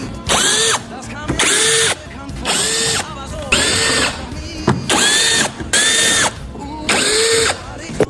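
Cordless power drill/driver run in seven short bursts, about one a second. Each burst winds up to a steady whine for about half a second, the way it does when driving fasteners out of a car's front bumper.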